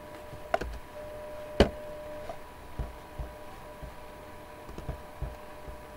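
A few isolated clicks from a computer mouse and keyboard, the sharpest about a second and a half in, followed by a few soft low thumps, over a faint steady electrical hum.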